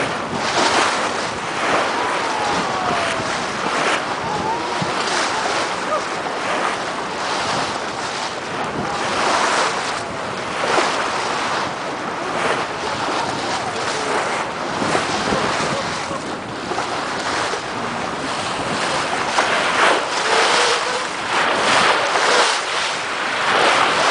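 Sea water rushing and splashing along a sailing yacht's hull under way, swelling and easing in irregular surges, with wind buffeting the microphone.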